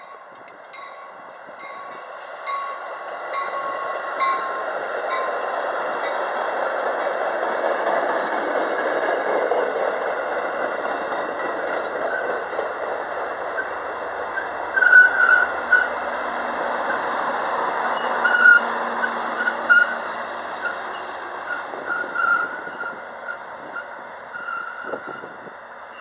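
Metra commuter train of bilevel passenger cars approaching and passing close by, its wheels rumbling on the rails and building to a peak partway through. In the second half come brief high wheel squeals and sharp clicks, and the sound fades as the train moves away near the end.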